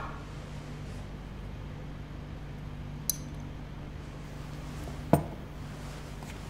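Tableware clinking: a knock right at the start, a brief high, ringing clink about three seconds in, and a louder knock about five seconds in, over a steady low hum.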